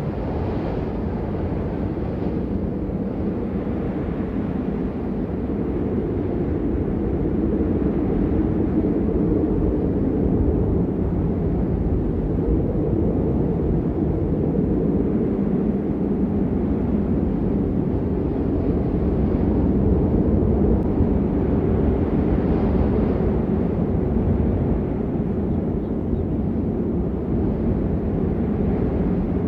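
Steady rain noise, a dense even rush sitting low and muffled, with little high-pitched patter.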